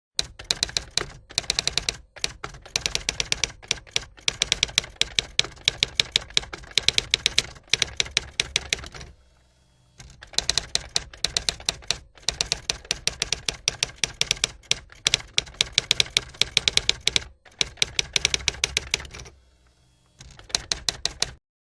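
Typewriter keys clacking in rapid runs, with two short pauses partway through and a stop just before the end.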